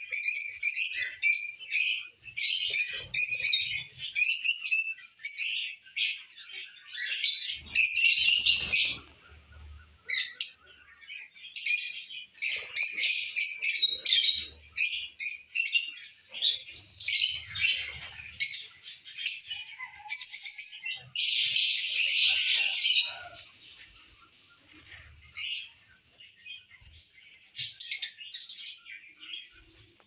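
Lovebirds chirping: rapid, shrill chirps in bursts that come and go, easing off for a few seconds near the end.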